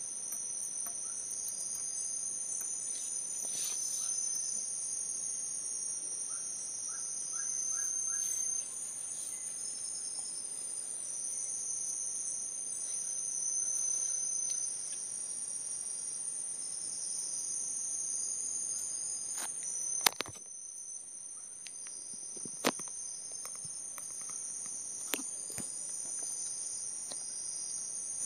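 A chorus of forest insects trilling steadily at a high pitch, with a second, slightly lower buzz that swells and fades in waves. A few sharp knocks cut through, the loudest about two-thirds of the way in.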